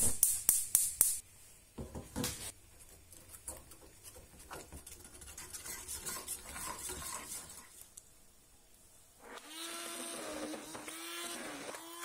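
Gas stove burner's igniter clicking rapidly for about a second, then a metal spoon stirring gelatin in water in a small stainless saucepan. From about nine seconds in, an immersion blender runs through thick curd-cheese mixture, its motor pitch dipping and recovering as it works.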